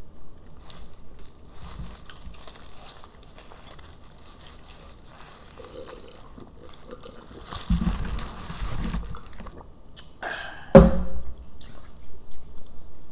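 Gulping and swallowing a drink from a plastic cup, with quiet chewing. A sudden loud vocal sound near the end is the loudest thing.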